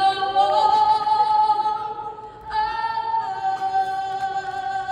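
A solo singer at a basketball arena, unaccompanied and amplified, holding two long notes in turn; the second begins about two and a half seconds in.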